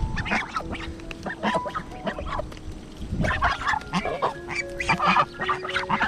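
A small flock of domestic geese grazing and giving frequent short honking calls.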